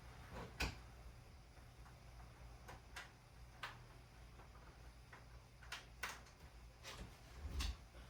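Scattered sharp light clicks, about eight spread unevenly over several seconds, over a faint steady low hum.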